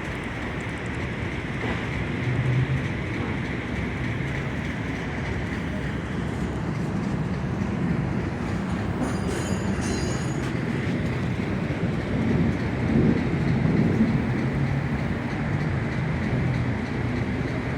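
Steady, low rumbling vehicle noise, with a brief high-pitched squeal about nine seconds in.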